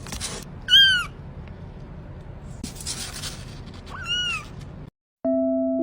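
A cat meowing twice, each a short call that rises and falls in pitch, about three seconds apart. Near the end the sound cuts out and music with struck mallet tones begins.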